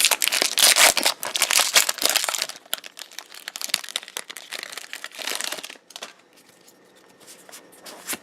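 Foil Pokémon booster pack wrapper crinkling as it is torn open, dense for the first two and a half seconds, then in sparser rustles, falling quiet for the last two seconds.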